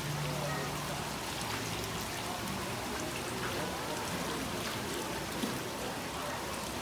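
Water running and splashing steadily through a children's water play channel, with faint voices in the background.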